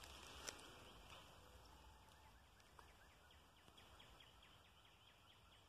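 Near silence in the woods with faint birdsong: a quick run of short, high, falling chirps in the middle, and a single soft click about half a second in.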